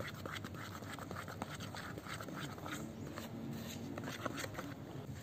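Metal spoon stirring a thick, floury pizza dough in a plastic bowl, scraping and clicking against the bowl in a quick, irregular run of soft scratches.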